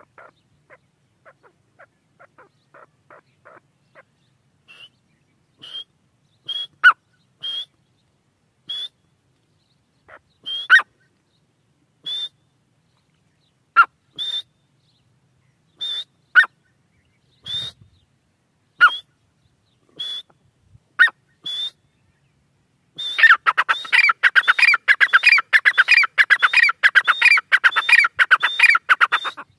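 Grey francolin (teetar) calling. It starts with soft, quick notes, then gives short high calls about once a second, some with a sharp crack. Near the end it breaks into a loud, rapid, continuous run of calls.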